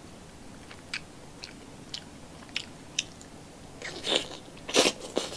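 A person biting into a piece of milkfish belly fat braised in vinegar (paksiw na bangus), held in the fingers close to the microphone: a few faint wet clicks, then two louder bites about four and five seconds in.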